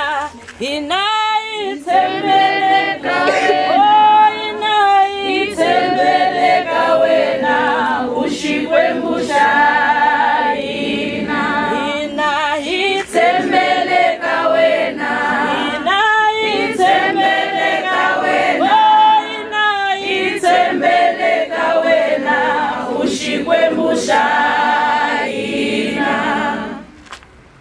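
A group of people singing together unaccompanied, voices in harmony, with the singing ending near the end.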